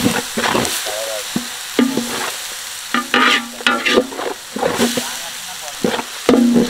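Spices and onion-tomato masala frying in a large pot, sizzling, while a metal ladle stirs and scrapes the bottom in irregular strokes, some strokes clanking against the metal.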